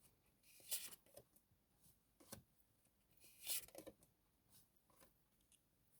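Faint rustles and soft scrapes of tarot cards being handled, three short bursts spread through a near-silent pause.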